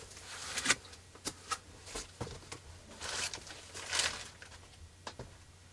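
Handling noise: scattered light clicks and knocks with a few short rustles, as things are picked up and moved about.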